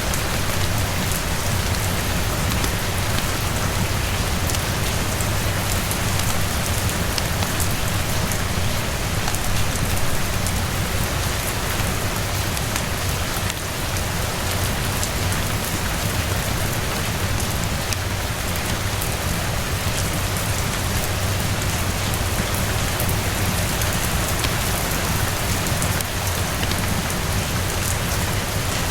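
Steady rain falling on a roof and terrace, with scattered faint crackles of a wood fire mixed in.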